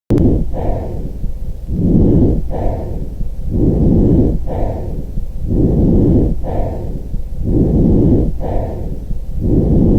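Recorded lung sounds: a person breathing in and out steadily, about one breath every two seconds, each breath a longer, stronger low-pitched phase followed by a shorter, slightly higher one.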